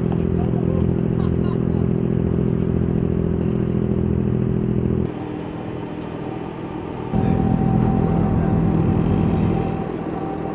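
A ferry's engine running steadily, a loud low drone. It drops away about five seconds in and returns about two seconds later, joined by a thin steady whine.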